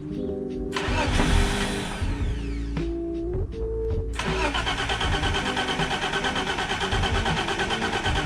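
BMW E30's engine being cranked by the starter: a short crank about a second in, then a longer crank from about four seconds in, pulsing evenly several times a second. Background music plays underneath.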